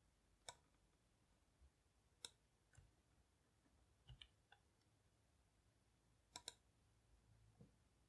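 Faint computer mouse button clicks against near silence, about eight in all, some single and some in quick pairs.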